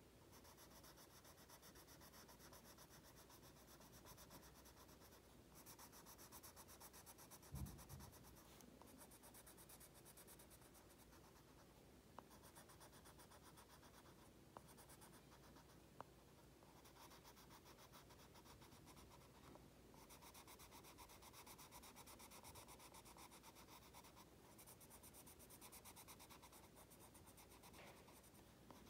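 Faint scratching of a yellow colour pencil lead on an index card, shading in rapid back-and-forth strokes with short pauses between stretches. A soft low thump about seven and a half seconds in.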